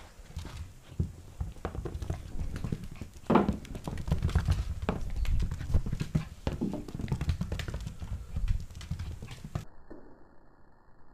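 Pembroke Welsh corgi puppy's claws clicking and scrabbling on a hardwood floor as it plays, with irregular knocks and low thumps close to the microphone. The loudest knock comes about three seconds in.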